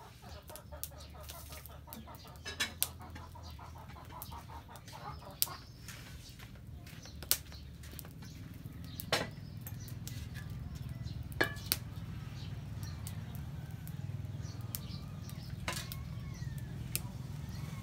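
Wood fire crackling in a clay stove over a steady low rumble. Scattered sharp knocks and clatters come from a metal pot being handled and set on the stove. Faint bird calls sound in the background.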